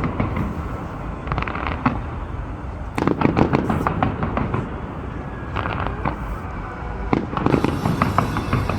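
Aerial fireworks going off: clusters of rapid, sharp crackling pops, four bursts of them, over a continuous low rumble of booms.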